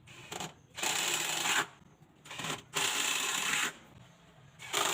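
Hand tool rasping along wood in three long strokes, about one every two seconds.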